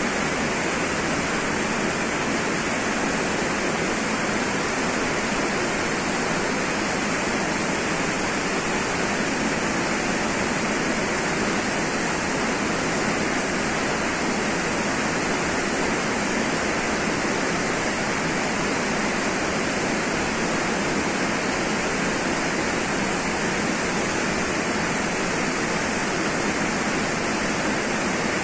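A stream pouring into a pool as a small waterfall, giving a steady, unbroken rush of water.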